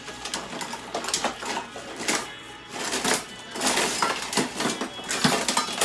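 Irregular clattering and rustling of things being handled close by, a run of short knocks and scrapes that come and go.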